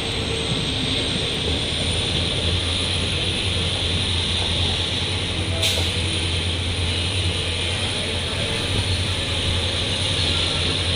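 Passenger trains running on adjacent tracks, heard from the open door of a moving coach: a steady rumble of wheels on rail with a low hum and hiss. A single sharp click about halfway through.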